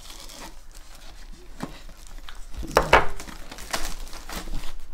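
Plastic shrink wrap on a cardboard booster box crinkling and rustling as it is cut open and pulled off, with a louder burst of crackling about three seconds in.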